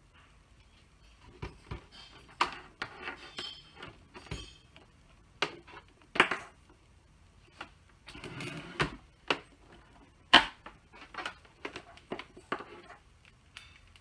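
Hands handling cables and a flat-screen computer monitor: a string of irregular clicks, knocks and rustles as a plug is worked at the back of the monitor and the screen is turned on its stand. The sharpest knock comes a little after the middle.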